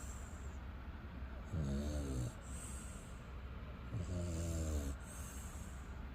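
American Bully dog snoring loudly: two low snores about two and a half seconds apart, each followed by a soft hiss.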